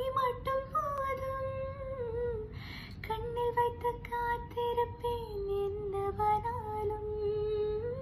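Romantic song with a woman's voice singing slow, long held notes over soft backing. The voice pauses briefly about three seconds in, then goes on.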